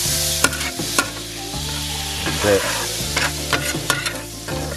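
Butter and oil sizzling on a hot barbecue hotplate, with a few sharp clicks and scrapes of metal tongs as a lump of butter is pushed across the plate.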